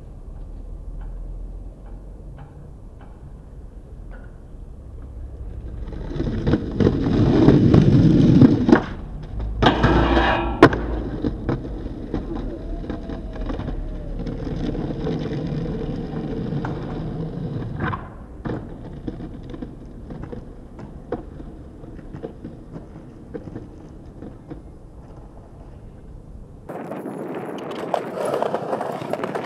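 Skateboard wheels rolling on concrete, with sharp clacks of the board popping and landing. The loudest rolling comes about a quarter of the way in, and the sound changes abruptly near the end as another clip begins.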